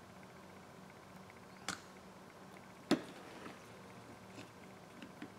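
Small clicks and taps of a precision screwdriver and tiny metal parts being handled on a phone display assembly. There is one click about a second and a half in, a louder sharp tap about three seconds in, and a few fainter ticks after.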